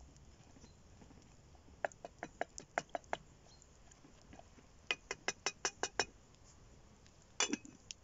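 A spoon clinks against the sides of a small cooking pot as it is stirred, in two runs of quick, sharp clicks. Near the end comes one louder clank as the lid goes onto the pot.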